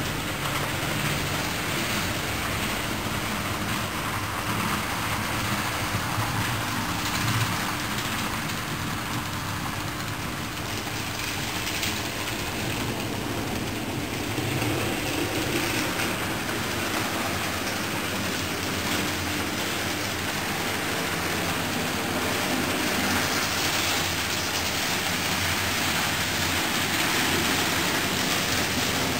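Model train running on the layout track: a small electric motor's hum and wheel noise under a steady hiss.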